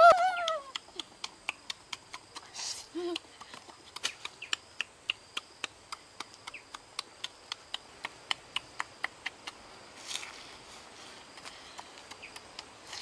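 Open-mouthed chewing on a roasted chicken wing: a steady run of wet lip-smacking clicks, about two to three a second, that stops near the end, with a short hummed "mm" about three seconds in.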